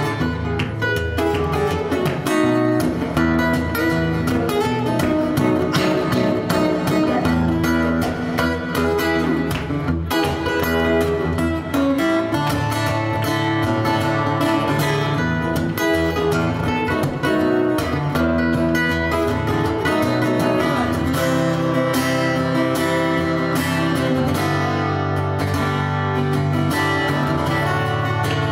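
Acoustic guitar played live, a continuous run of ringing chords and notes.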